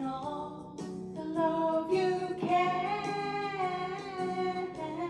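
A woman singing a slow song into a handheld microphone over a backing track, holding long notes that glide from pitch to pitch.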